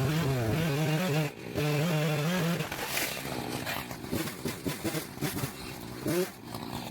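Echo CS-590 Timberwolf two-stroke chainsaw running at high revs in a cut, its pitch wavering, in two stretches with a short dip between them. It is followed by a run of sharp cracks and knocks.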